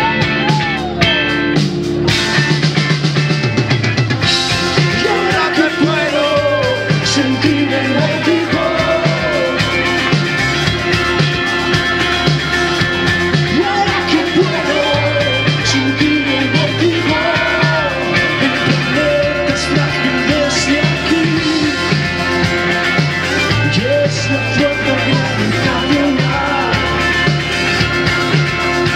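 Live rock band playing: a male singer over electric guitar, keyboard, bass and a drum kit keeping a steady beat.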